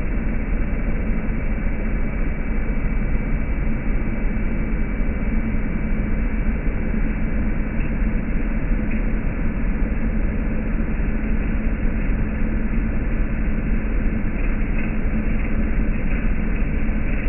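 Early-1970s Hoover Custom Convertible U4007 upright vacuum running steadily on medium-pile carpet, its motor giving a constant hum with one held low tone as the four-row metal brush roll sweeps the pile.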